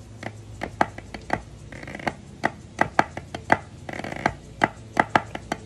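Drumsticks striking a rubber practice pad: crisp, dry accented strokes in an uneven pattern, broken three times by short, fast rolls.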